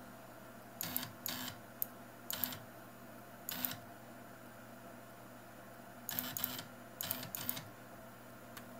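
Stepper motor of a RepRap Prusa i2 3D printer's X axis driving the carriage by belt along its rods in short jog moves: about six brief buzzing runs, a few of them close together in pairs, over a steady low hum.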